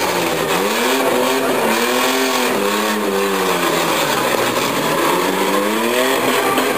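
Demolition-derby minivan and SUV engines revving hard and easing off again and again, the pitch rising and falling in several swells, as the locked-together cars push against each other.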